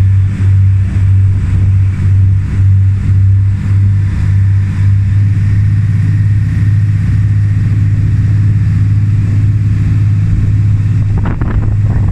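A passenger ferry's engine running with a loud, steady low drone. For the first few seconds the sound swells and dips regularly, nearly twice a second, then it evens out. A few sharp knocks come near the end.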